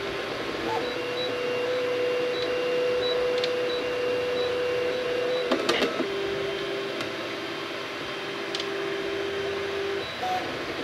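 3D printer's stepper motors whining as the print bed moves: a steady tone that steps down to a lower pitch about halfway through, with a short cluster of clicks at the change, and stops about a second before the end.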